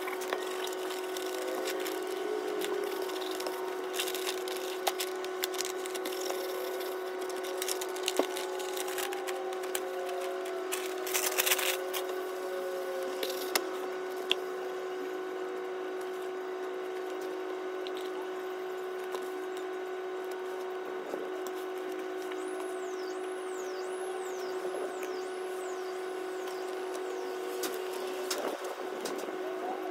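Paper rustling and crinkling, with small clicks and taps, as a sheet of wallpaper is handled and wrapped around a canvas frame, over a steady hum. The rustling is loudest a little over a third of the way through, and about three-quarters through there is a quick run of about six high chirps, each falling in pitch.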